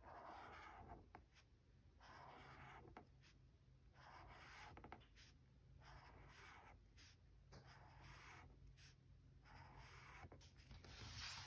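Faint scratching of a pen on journal paper: short strokes, each under a second, every one to two seconds.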